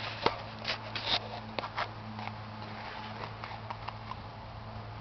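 John Deere 7320 tractor's diesel engine running with a steady low hum, with a few sharp clicks and knocks in the first two seconds.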